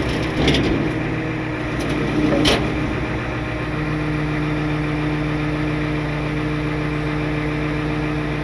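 Wrecker tow truck's engine running steadily while the hydraulic boom is raised, with a few metallic knocks in the first three seconds. About four seconds in a steady, higher hum joins and holds.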